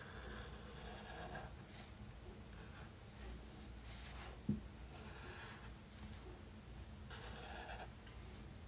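Black Sharpie permanent marker drawn across mixed media sketchbook paper: faint scratching in repeated short strokes as lines are traced. A single light tap comes about four and a half seconds in.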